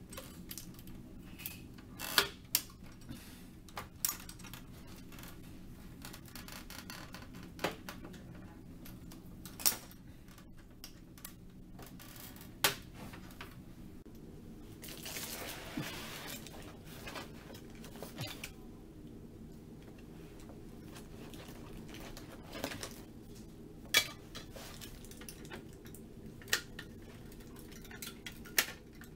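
Scattered sharp clicks and knocks of plastic printer parts being handled and worked with a screwdriver during disassembly of a Kyocera printer, with a longer scraping, rustling stretch about halfway through, over a steady low hum.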